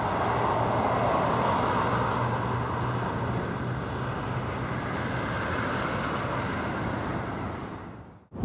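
Road traffic: a car driving along the road, a steady hiss of tyres and engine with a low hum in the first few seconds, fading out about eight seconds in.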